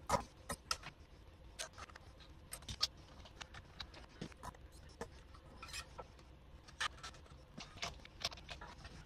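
Steel electric guitar strings being fed through the tailpiece and pulled through by hand: irregular small metallic clicks, ticks and scrapes, the sharpest one right at the start.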